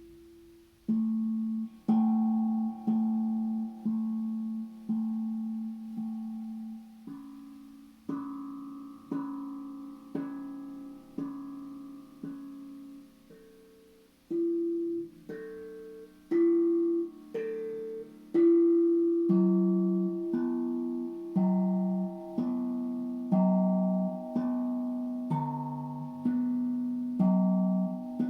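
Steel tank drum played as a slow melody of single struck notes, about one a second, each ringing out and fading before the next.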